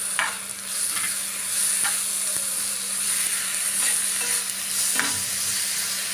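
Chopped onions and garlic paste sizzling in hot oil in a pan, stirred with a steel spoon that scrapes against the pan a few times. The onions are being fried until soft.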